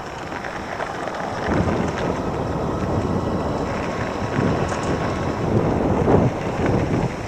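Wind buffeting the microphone in uneven gusts while riding an electric bike at about 17 miles an hour.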